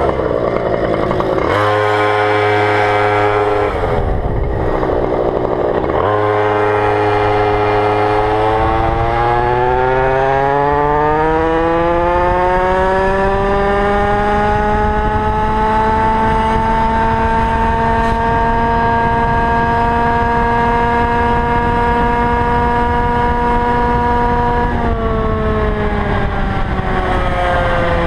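Goped GTR scooter's two-stroke engine. It idles with a brief rough burst of revs, then pulls away with a steadily rising whine that settles into a held high cruising note and drops back near the end. It runs on 25:1 premix, and the owner wonders whether it sounds too rich.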